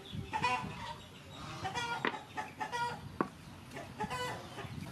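Chickens clucking in four short bouts, with two sharp knocks from a wooden pestle in a wooden mortar.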